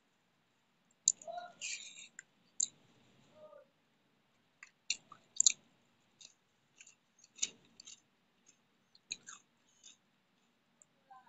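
A person chewing a mouthful of rice and fish curry, with irregular wet mouth smacks and clicks: a denser run of chewing about a second in, then scattered smacks.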